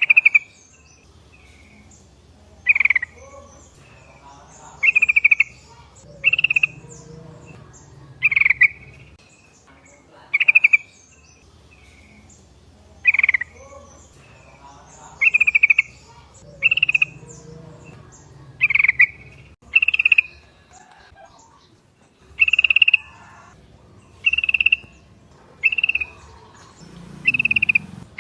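Yellow-vented bulbuls (trucukan) singing: short, loud, bubbly phrases repeated about every one to two seconds, over a faint low hum.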